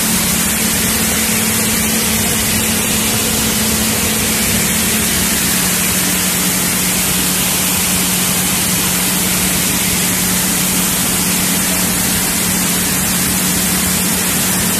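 Soybean cleaning machinery running: a steady, loud rushing noise with a steady low motor hum underneath.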